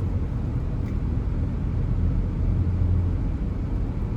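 Steady low rumble of a car on the move, heard from inside the cabin, with a low engine drone holding through the middle.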